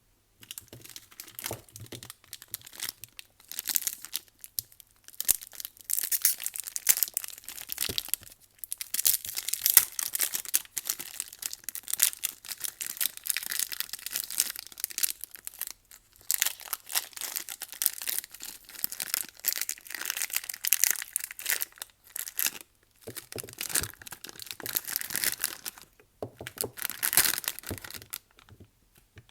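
Soap wrappers being crinkled and torn open as bars of soap are unpacked, a dense crackling that comes in stretches of several seconds with short pauses between.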